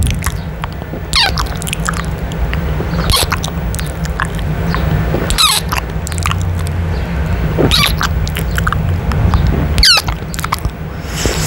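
Close-up kissing and wet lip-smacking sounds on a microphone grille: sharp wet clicks and smacks about every second or two, over a steady low rumble.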